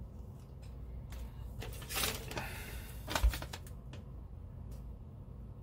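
Small clicks and taps from handling model-kit parts and LEDs on a workbench, with a brief rustle about two seconds in and a sharper knock just after three seconds.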